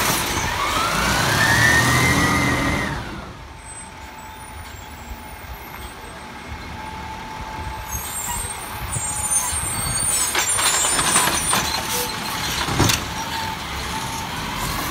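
Peterbilt 520 garbage truck's diesel engine revving to drive the automated arm's hydraulics, with a whine that rises and falls over the first three seconds before dropping back to idle. In the last few seconds the truck pulls up with air-brake hissing, and a clunk comes as the arm grabs the cart.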